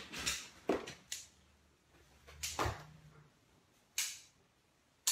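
About half a dozen short, sharp knocks spread out, with silence between them, in a small room.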